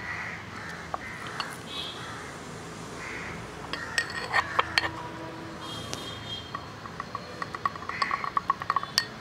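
Small stainless steel cup clinking and tapping against the rim of a blender jar as ginger juice is poured and shaken out of it. Scattered clinks start about four seconds in, and a quick run of taps comes near the end.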